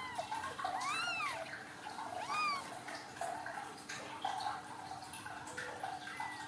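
One-week-old Ragdoll kittens mewing: three thin, high-pitched mews that each rise and fall, in the first three seconds, and a faint short one near the end, with small clicks and rustles between them.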